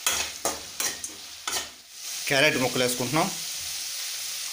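Onions, green chillies and tomatoes sizzling in oil in a metal kadai, with a utensil scraping and knocking against the pan several times in the first second and a half of stirring. A brief bit of voice about halfway, then a steady sizzle.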